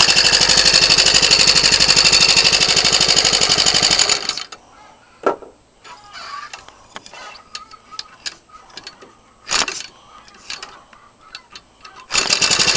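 Ryobi 29cc four-stroke string-trimmer engine, converted for RC aircraft use, running fast and steadily, then cutting out about four seconds in. Scattered clicks and knocks follow while it is handled, and near the end it is hand-started and catches, running again at full speed. It runs lean on its stock, unadjustable carburetor, as the owner says.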